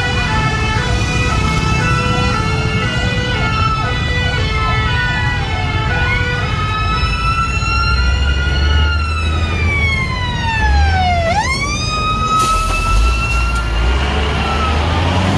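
Fire engine sirens: a stepped hi-lo two-tone at first, then a wail that sweeps down and back up, over the low diesel rumble of a fire tanker truck passing close. A loud hiss comes in near the end.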